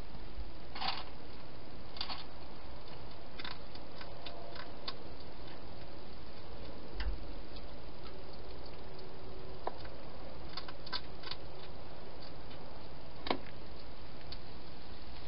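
European hedgehog chewing food from a bowl inside a plastic feeding box: irregular crisp clicks and crunches, several in quick runs, the sharpest near the end, over a steady hiss.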